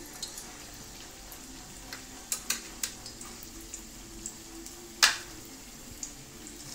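Breaded chicken thighs frying in hot oil: a steady sizzle with scattered pops, and one loud sharp crack about five seconds in.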